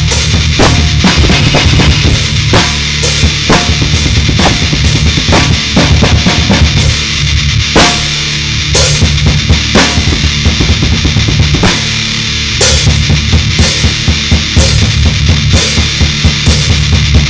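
Heavy rock music led by a hard-hit drum kit: bass drum, snare and cymbal strokes in a steady beat over a dense, sustained low end.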